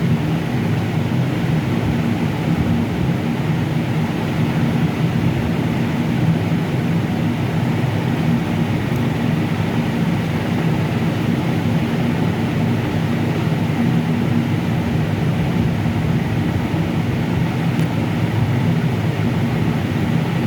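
Steady, unchanging low mechanical hum: a drone with a few steady low tones over a noisy rush, like a running motor or fan.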